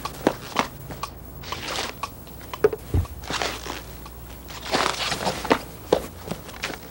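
Cartoon sound effects: a run of small sharp taps and knocks, with three short bursts of rustling, the longest about five seconds in.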